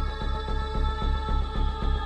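Background film score: sustained held chords over a low pulsing bass, about three beats a second.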